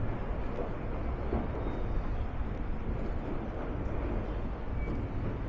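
Steady outdoor city street ambience: a low rumble of traffic under an even wash of noise.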